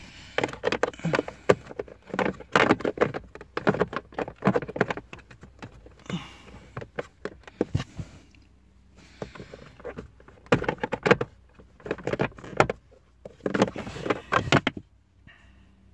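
Hard plastic dashboard trim cover of a Citroën C4 Picasso being pushed and worked back into place by hand: repeated clattering knocks and clicks of plastic on plastic, in bouts with short pauses.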